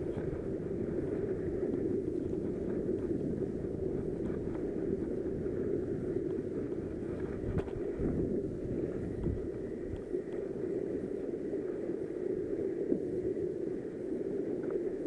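Steady rushing noise of wind and sea at the microphone, with a few faint knocks about eight seconds in as the rod and reel are handled close to the camera.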